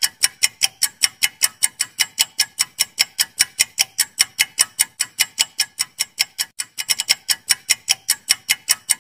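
Countdown-timer sound effect: rapid clock-like ticking, about five ticks a second, with a short uneven stretch about seven seconds in.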